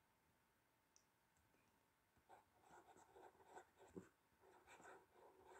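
Faint scratching of handwriting strokes, in short bursts that start about two seconds in after a near-silent stretch.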